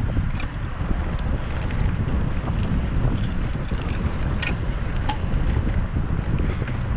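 Wind buffeting a GoPro Hero7's microphone on a moving bicycle: a steady low rumble of wind noise, with a few faint clicks, the clearest about four and a half seconds in.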